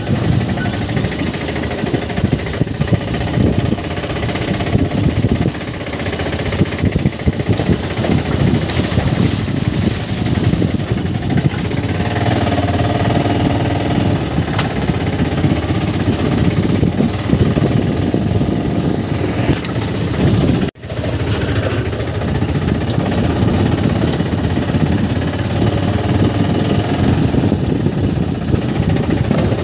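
Motorcycle engine running while the bike is ridden over a rough, muddy dirt road, with rumbling road and riding noise. The sound drops out for an instant about two-thirds of the way through.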